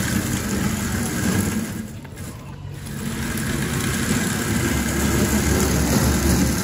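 Drive motor and tracks of a homemade tracked Wall-E robot running as it rolls along, a steady mechanical hum that dips briefly about two seconds in and then comes back.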